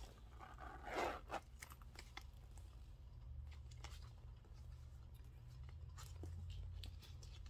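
Zipper of a Coach mini Serena handbag pulled closed in one short rasp about a second in, followed by faint clicks and rustles of the bag being handled, over a low steady hum.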